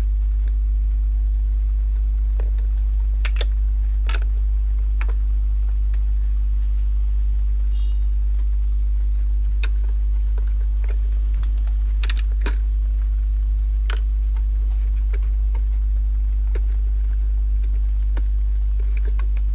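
Steady low electrical hum, with scattered sharp clicks and taps of a screwdriver, screws and plastic parts as hands unscrew the power supply board inside a cassette player's chassis.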